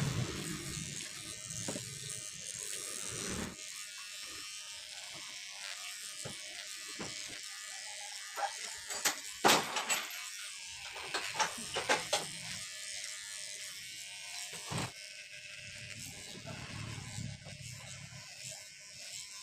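Electric hair clippers running steadily as they trim the back and side of a man's head over a comb. A series of sharp clicks comes through the middle.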